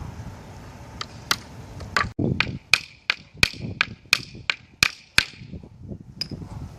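Steel hammer driving a nail into wood: a run of about a dozen sharp strikes, roughly three a second, each with a short metallic ring, and one lighter tap about a second after the run.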